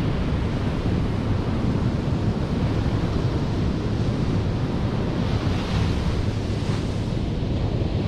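Ocean waves breaking and washing up the sand, with wind buffeting the microphone as a steady low rumble underneath. A wave's wash swells up about five seconds in and fades again.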